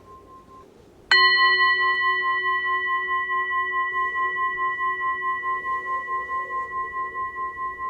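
A singing bowl struck once about a second in, ringing on with several tones and a slow, pulsing waver as it fades. Before the strike, the faint tail of an earlier ring is heard.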